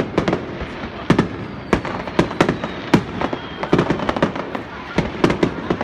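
Fireworks display going off: many sharp bangs in quick, irregular succession, several a second.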